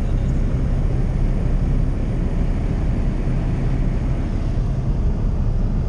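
Single-engine light aircraft's engine and propeller running steadily at high power on the takeoff run from a grass strip, heard from inside the cabin with rushing wind.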